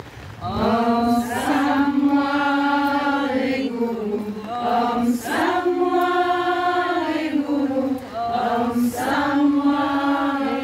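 A group of women singing a slow chant together in long held notes: three phrases, each stepping down in pitch at its end, with short pauses for breath between them.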